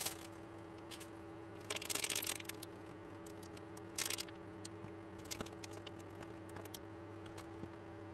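Brief rustling, crinkling handling noises three times, with scattered light clicks, over a steady low hum.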